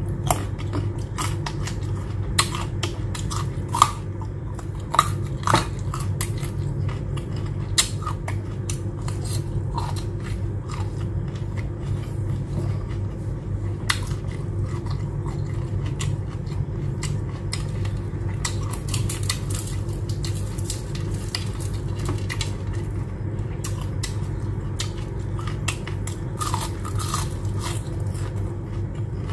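Close-up eating sounds: chewing raw carrot and fried shrimp, with crunching bites and many short, sharp mouth clicks and smacks, over a steady low hum.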